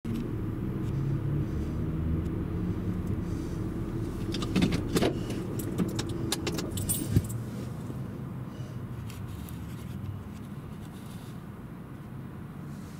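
Low steady rumble of a car idling, heard from inside its cabin. Between about four and seven seconds in, a burst of metallic jingling and sharp clicks rises over it.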